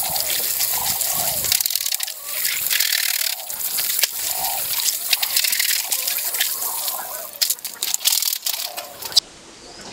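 Water running and splashing over keyboard parts as they are washed by hand, cutting off suddenly near the end.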